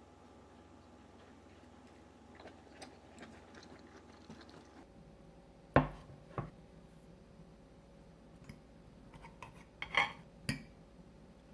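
Cutlery clinking against a plate: a few faint light clicks, then a sharp clink about halfway through and two or three more near the end.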